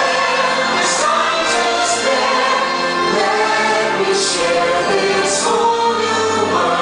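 Orchestral show music with a choir singing, the fireworks show's soundtrack played loud over the park's speakers. A few short hissing bursts cut through it.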